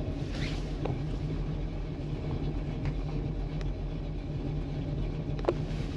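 A 1968 Chevrolet Camaro driving along, heard from inside the cabin: a steady engine and road rumble, with a few faint ticks.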